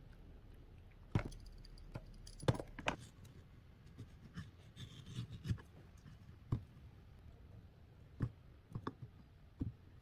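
Scattered light taps and knocks, about eight in all, of a metal spoon and a kitchen knife against mango flesh and a wooden cutting board, with a brief soft scrape around five seconds in.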